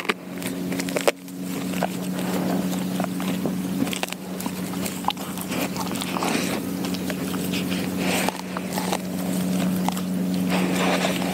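A Doberman chewing and crunching through a whole raw quail, a close, continuous run of crackles and crunches. A steady low hum sits underneath.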